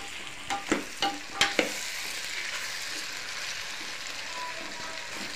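Vegetable curry sizzling in a metal pot on a gas stove as a steel spoon stirs it, with a few sharp clicks of the spoon against the pot in the first second and a half, then a steady sizzle.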